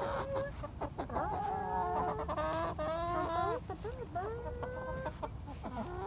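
A hen calling over and over in long, drawn-out notes that waver up and down in pitch.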